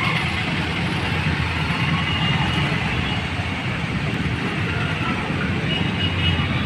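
Steady low rumble with a hiss of roadside street noise, with no single sound standing out.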